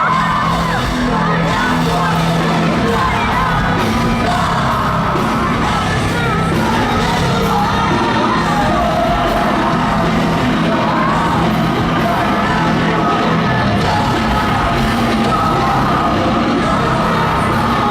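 Post-hardcore rock band playing live at full volume, with sung and yelled vocals over the band, heard in a large hall.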